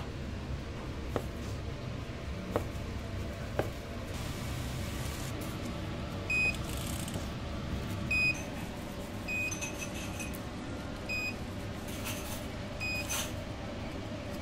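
Short electronic beeps at one high pitch, starting about six seconds in and repeating every second or two, over a steady low hum with a few light clicks early on.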